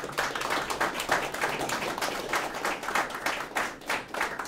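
A small audience applauding, with individual hand claps distinct in a dense, steady patter.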